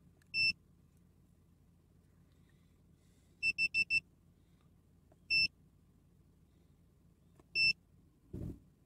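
Foxwell NT301 OBD2 code reader beeping at each key press as its menu is worked to erase the stored fault codes. There is one short high beep, then a quick run of four, then two more single beeps, with a soft low rustle near the end.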